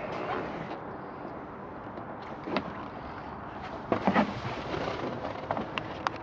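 A few light clicks and knocks over steady background noise: a sharp click a couple of seconds in, a short cluster of knocks about four seconds in, and several small clicks near the end, typical of a part of the boat being handled and moved.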